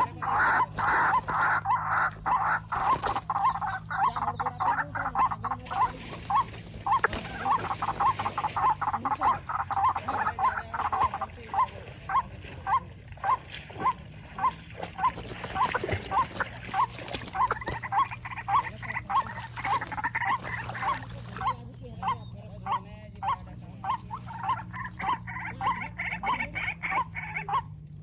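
White-breasted waterhen (dahuk) calling: a long run of short, repeated croaking notes, about two to three a second.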